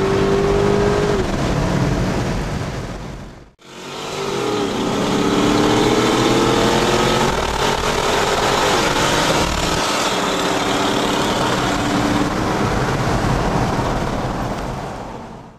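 V8 engine heard from inside the car, accelerating hard through the gears: its pitch climbs, drops back at each upshift, then climbs again. A brief gap about three and a half seconds in splits it into two runs.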